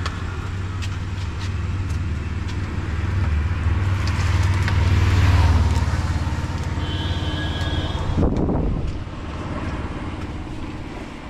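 A motor vehicle's engine running close by: a steady low hum that grows louder toward the middle and drops away after about eight seconds. A short high electronic beep sounds shortly before it drops, and there are scattered light knocks.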